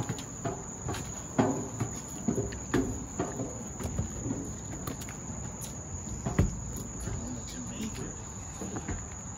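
Footsteps climbing a metal spiral staircase, an uneven series of knocks and thuds, over a steady high-pitched chirring of insects.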